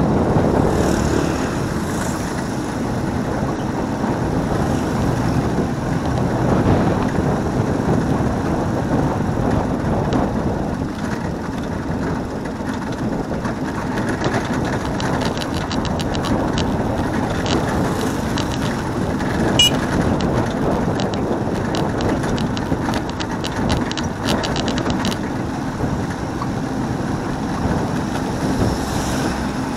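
Steady vehicle engine and road noise, with a run of light rattling clicks about halfway through.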